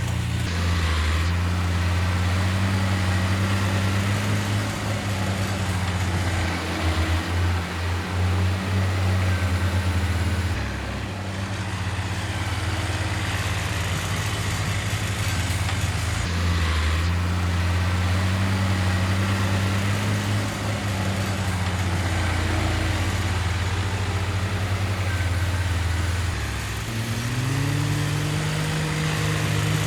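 Heavy diesel earthmoving machine's engine running steadily, its pitch shifting a few times as the load changes, then revving up about 27 seconds in.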